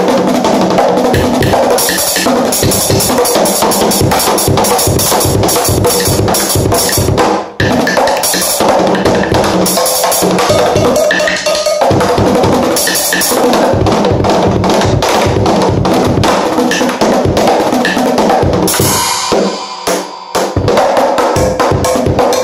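Drum and percussion ensemble playing a fast, dense rhythm, with a short break about seven seconds in and a brief drop-off near the end.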